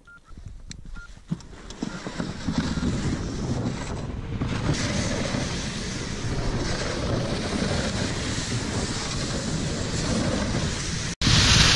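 Rescue sled towed over snow behind an MTT tracked vehicle: a steady rushing, rumbling noise of the moving sled and tracks, with wind on the microphone. A few small knocks come as it starts off, and the noise builds over the first two seconds. Near the end it cuts out for a moment and comes back louder.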